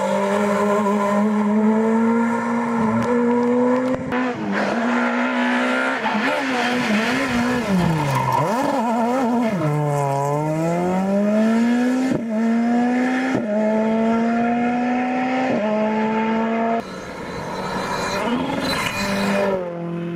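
Skoda Fabia S2000 rally car's engine at full throttle, revs climbing steadily and dropping sharply at each upshift. Around the middle the revs waver and fall before it pulls up through the gears again. Near the end it cuts to a quieter, more distant car going by.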